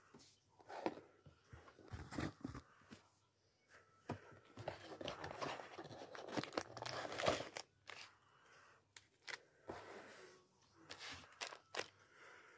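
Toy-car packaging being opened and handled: a cardboard Tomica box and the clear plastic bag around a die-cast model car, crinkling and tearing in irregular crackles and taps, busiest in the middle.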